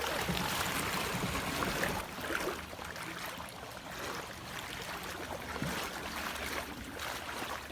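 Floodwater sloshing and splashing steadily as a person wades through it, loudest for the first couple of seconds; the sound drops away sharply at the end.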